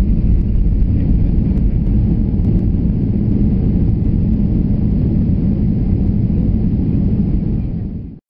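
Inside a jet airliner's cabin as it rolls out along the runway after landing: a steady low rumble of engines and wheels, easing slightly and fading out about eight seconds in.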